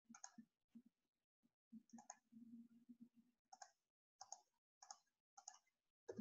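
Faint computer mouse clicks, about a dozen short ones at an uneven pace.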